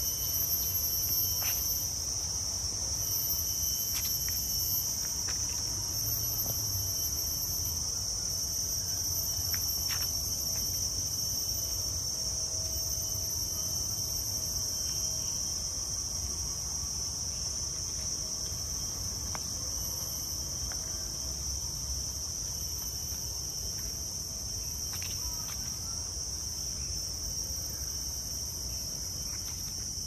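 Unbroken high-pitched insect chorus, a steady shrill drone of forest insects, with a few faint short clicks here and there.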